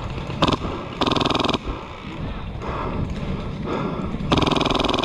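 Airsoft electric gun firing full-auto bursts, a rapid buzzing rattle of shots. There are three bursts: a brief one, a short one about a second in, and a longer one of about a second near the end.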